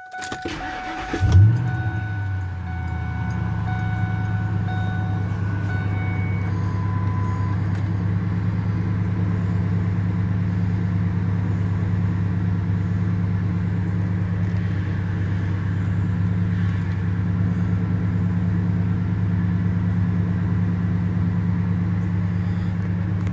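2000 Ford F-150 Harley-Davidson edition's 5.4-litre V8 cold-starting. The starter cranks for about a second, the engine catches with a brief flare in revs, then settles into a steady cold idle. A thin steady high tone sounds over it for the first few seconds.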